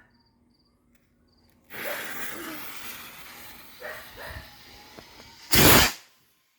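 Aurora skyrocket going off: a sudden loud hiss that fades over about four seconds, then a single loud bang near the end as it bursts.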